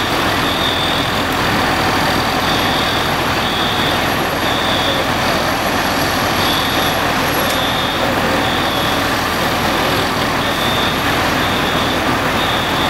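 Parked fire engines' diesel engines running steadily, giving a loud, even engine noise, with a high electronic beep repeating in short runs of about three.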